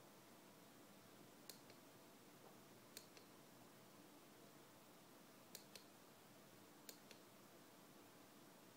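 Faint double clicks, four times, each a press and release of a small plastic push button on a lightsaber-style umbrella's LED handle, the switch that steps the light through its colours.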